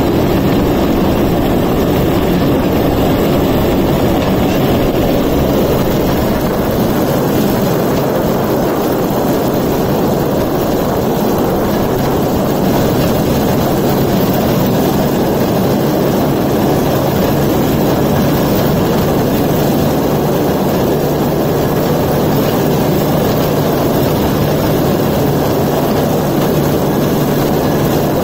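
Suzuki 125cc two-stroke engine running steadily as the homemade rail cart rolls along the rails at speed.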